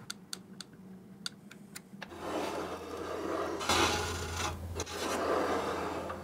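A few faint clicks of a hex key on a table-saw fence bolt, then from about two seconds in a steel rule scraping across the metal table-saw top, metal rubbing on metal.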